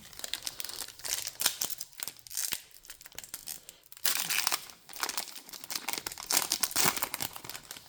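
Crinkling and tearing of a foil trading card pack wrapper being ripped open and handled, with the loudest crackling about four seconds in and again near seven seconds.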